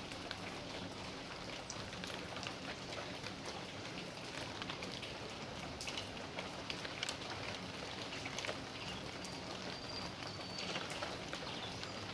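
Steady rain falling in a backyard, a constant hiss dotted with many close individual drops ticking and splashing.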